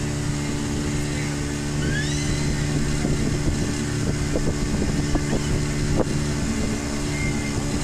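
Passenger boat's engine running at a steady speed, a constant drone under way on the water.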